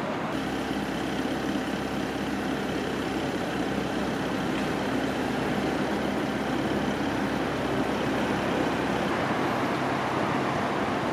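Steady city traffic noise with a heavy vehicle's engine running, growing slightly louder near the end.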